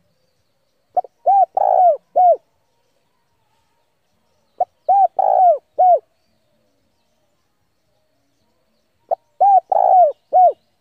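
Spotted dove song: three identical phrases about four seconds apart, each a brief opening note followed by three arched coos, the middle one longest. It is the male's territorial song from a decoy bird, which draws rival males in to fight.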